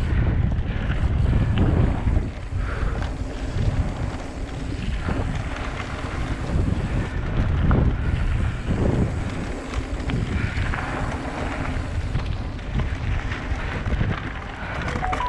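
Wind buffeting the GoPro's microphone as a mountain bike rolls quickly down a dry gravel trail, with tyre crunch and scattered rattles and knocks from the bike over bumps.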